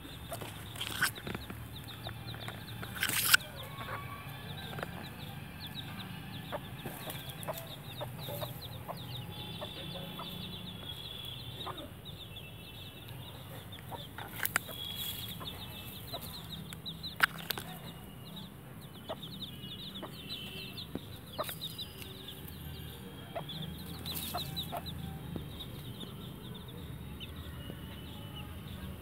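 Week-old chicks peeping over and over in short, high, falling chirps, with a hen clucking low beneath them. A few sharp clicks cut in, the loudest about three seconds in.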